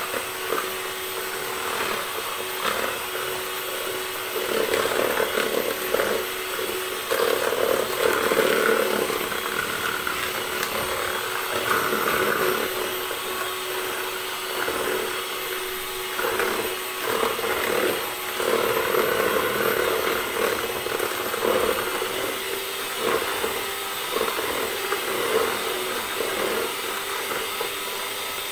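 Panasonic electric hand mixer running steadily at a constant hum, its twin beaters whisking oil and powdered sugar in a plastic bowl, with uneven swells of churning and scraping as they move through the mixture.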